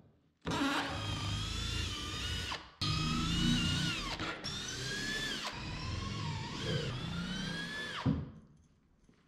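Cordless drill/driver backing screws out of a plywood crate panel. The motor whines in several runs separated by brief breaks, and each run winds down in pitch as it stops.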